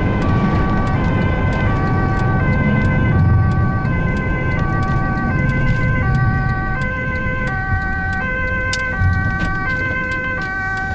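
Ambulance two-tone siren alternating between a high and a low note about every three-quarters of a second, over the steady rumble of the vehicle's engine and tyres.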